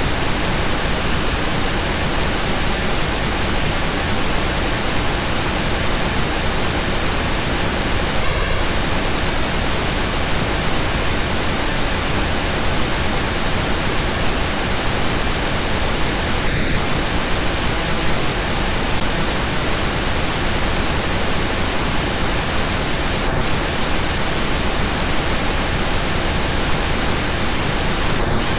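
Steady, even hiss of a relaxation noise track, level and unchanging, with faint high-pitched tones coming and going in short repeated pulses over it.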